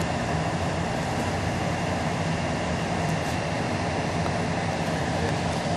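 Steady machine hum with a low drone and an even rushing noise, unchanging throughout.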